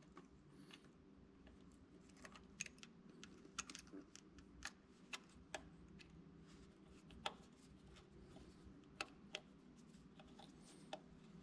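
Faint, irregular small clicks and taps of a screwdriver and the condenser's mounting screw against the breaker plate in an Oliver 880's distributor as the new condenser is lined up and fastened, over a faint steady hum.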